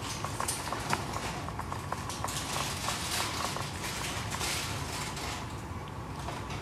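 Ragdoll cat grooming another cat: a run of rasping tongue strokes through fur with small clicks, recorded close up.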